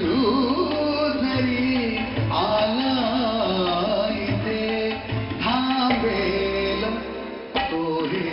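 Live Indian light-classical style music: a man singing a gliding, ornamented melody, accompanied by keyboard, acoustic guitar and hand-drum beats.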